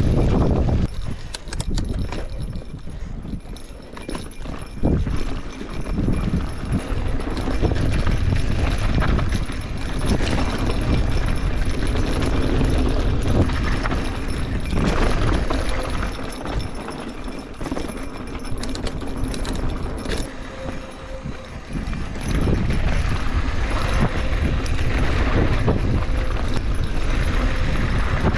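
Mountain bike descending a rough dirt singletrack: wind buffeting the microphone as a heavy low rumble, with rapid clicks and rattles from the bike and tyres over dirt and stones.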